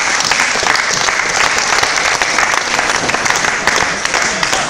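Spectators applauding: dense, steady clapping that keeps up throughout.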